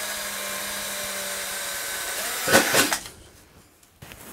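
Cordless drill running steadily as it bores a rivet hole through a metal armor plate, stopping about two seconds in. A brief louder burst of sound follows.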